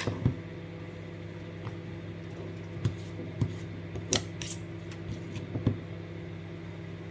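Table knife tapping and scraping as spread is taken from a tub and spread on slices of bread: a handful of short clinks and scrapes, with a steady low hum behind.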